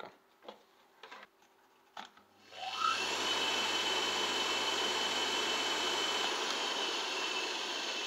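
Washing-machine induction motor, capacitor-run on its high-speed 2820 rpm winding, switched on: a few light clicks, then it spins up with a rising whine and runs with a steady whir over a low electrical hum. About six seconds in the hum stops and the whir begins to fade as the motor coasts.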